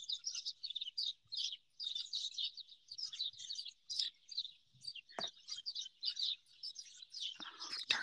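Flock of small wild birds chirping and twittering from the trees, many short high calls overlapping continuously.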